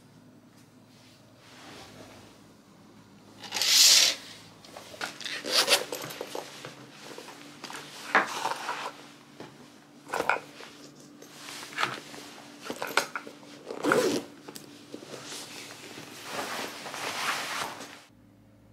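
A run of short handling noises (rustles, light knocks and a zipper) as a small pouch is slipped into a zippered leather shoulder bag. The loudest is a brief swish about four seconds in.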